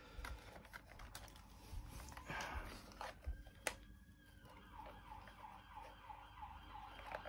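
Faint clicks and rustling of the DeLorean model's wires and plastic parts being handled and squeezed into place, with one sharper click a little past halfway. A faint rising and falling tone runs under it in the second half.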